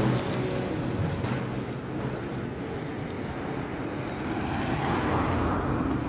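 Road traffic passing on a wet road: tyres hiss and engines run as cars and a motorcycle go by. The noise swells in the second half as a vehicle passes close.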